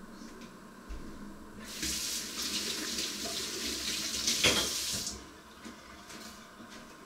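Water running from a kitchen tap for about three seconds, starting about two seconds in and shut off about five seconds in, with one brief louder knock near the end of the flow.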